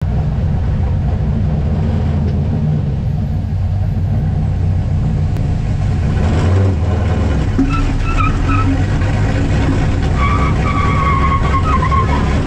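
Race-built car's engine running steadily at low speed as it rolls along, a deep, loud rumble heard from inside the stripped, roll-caged cabin.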